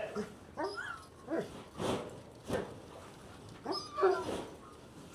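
Lambs bleating: a string of short, high calls, six or seven in quick succession, some overlapping.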